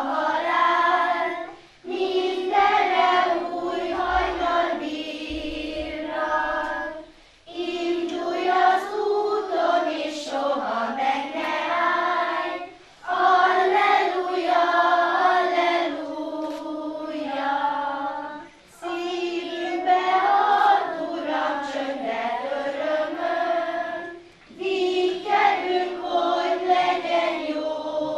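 Children's choir singing, in phrases of about five or six seconds, each followed by a short pause for breath.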